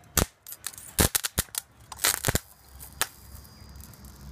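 Sharp snapping cracks of electrical arcing where a metal bar makes loose, intermittent contact across the output terminals of a homemade high-current transformer (an arc welder transformer rewound with railway cable), several in quick succession in the first half. A low steady hum comes in about halfway as the transformer carries load.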